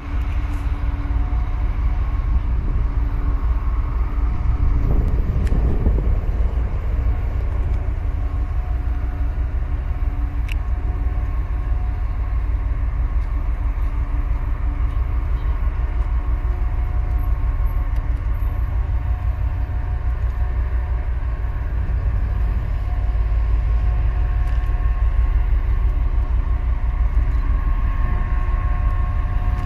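Steady low rumble with a constant droning hum from the cable-laying ship Cable Retriever's machinery as it moves through the harbour channel. Wind buffets the microphone underneath.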